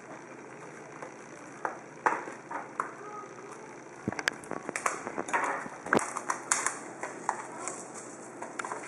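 Hands handling shrink-wrapped Topps Triple Threads card boxes and peeling off the plastic wrap: scattered crinkles, taps and clicks, busiest from about four to seven seconds in.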